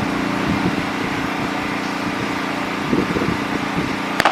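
Steady mechanical hum with a low murmur of voices at a track meet, then a single sharp crack near the end.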